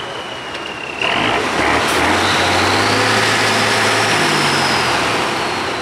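Diesel engine of an eight-wheeled trial truck bogged in a mud pit, revving up sharply about a second in and held at high revs as the driver tries to drive out, with a high whine rising and then falling above it.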